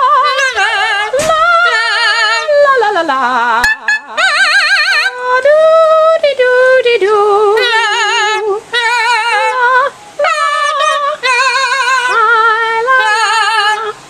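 Yellow-naped Amazon parrot singing opera-style: a string of held, high notes with a wide, wobbling vibrato, in short phrases with brief breaks between them.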